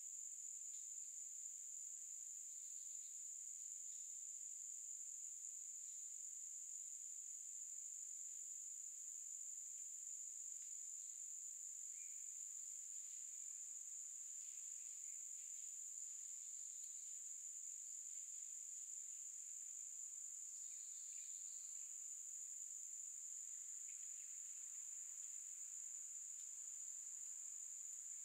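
Insect chorus in a summer forest: a steady, high-pitched drone, with faint short chirps now and then.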